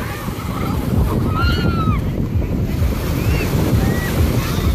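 Wind buffeting the microphone over the wash of small waves breaking in shallow sea water, a steady low rumble throughout. A few faint voices call out briefly from people in the water.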